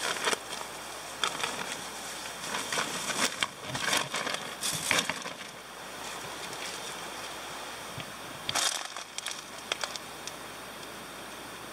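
Rustling and crinkling handling noises, bunches of short scrapes and crackles that come and go, as things are moved about in a small tent and a plastic food packet is picked up. A steady hiss lies underneath.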